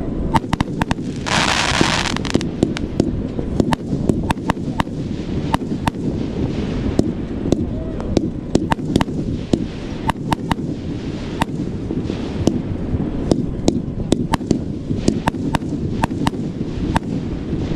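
Black Scorpion CLA14015 'Blue Tail to Gold Drills' 1.4G firework cake firing, with many sharp pops and cracks scattered through and a hissing burst about a second in.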